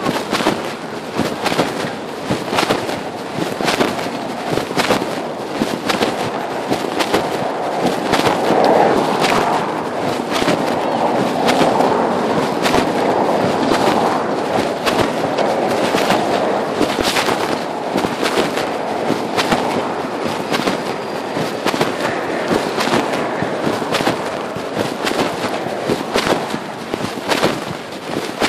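Pocket fabric rubbing and scraping against a phone's microphone while the wearer walks, a dense, irregular run of crackles and scratches.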